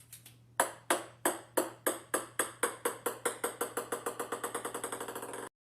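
A run of sharp electronic pinging ticks that start slowly and speed up steadily, then cut off suddenly near the end.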